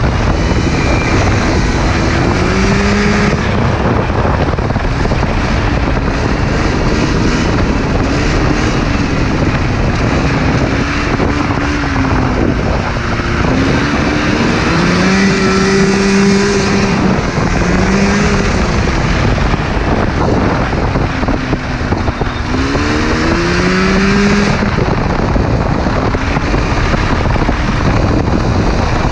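480cc Yamaha Phazer snowmobile engine in a go-kart running hard at road speed, its pitch rising and falling several times as the kart slows for a bend and accelerates again. Heavy wind rush over the microphone runs under the engine.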